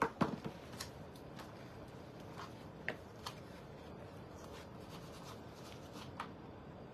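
Handling noise of small objects being moved about: a few soft knocks at the start, then scattered light clicks and taps.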